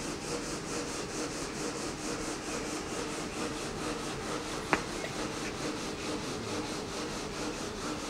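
Diamond wire saw running and cutting marble, a steady grinding hiss with a faint steady hum under it. A single sharp click about halfway through.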